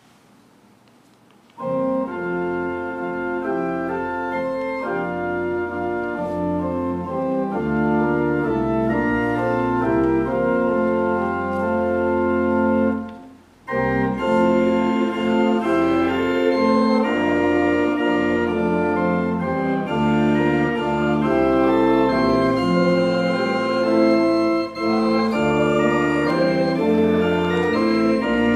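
Church organ playing sustained chords. It comes in about two seconds in, breaks off briefly about halfway, then resumes.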